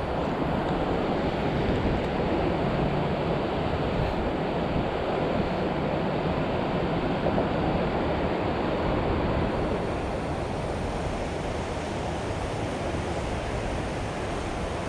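Steady rush of flowing river water below a low dam, easing slightly about ten seconds in.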